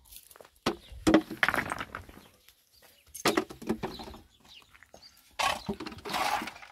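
Chickens clucking in short separate bursts, with a longer stretch of rough noise near the end.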